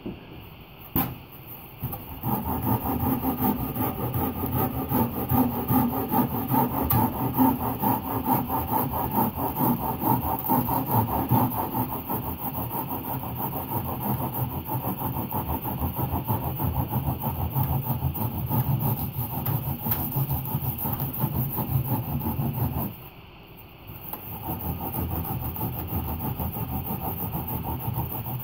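Sanding block rubbed back and forth over rigid foam, a rough continuous scraping that breaks off briefly near the end and then starts again.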